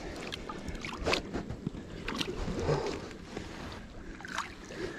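Shallow river water sloshing and splashing at the bank, with irregular close knocks and rustles from moving in the water's edge.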